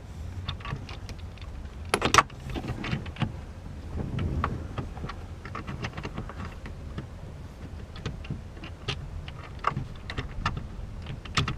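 Irregular small clicks, taps and knocks of a bolt and a grab-handle bracket being handled and threaded in by hand against a Jeep's metal frame, with a louder clatter about two seconds in.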